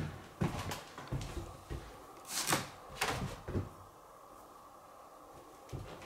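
Handling noises of stored objects: a sharp knock at the start, then a run of irregular knocks, bumps and scrapes, the two loudest in the middle.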